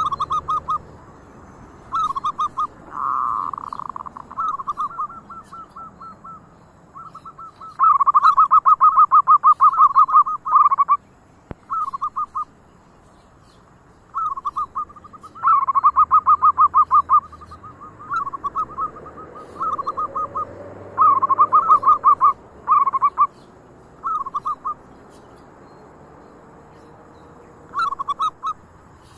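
Zebra doves cooing: bursts of rapid, short pulsed notes, several birds calling in turn, some louder and some fainter, with short gaps between the phrases.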